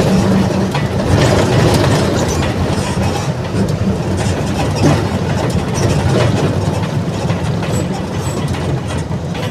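Diesel engine of a Mercedes-Benz OF-1722M city bus running steadily under way, with a constant low hum and many rattles and clicks. The sound eases slightly toward the end.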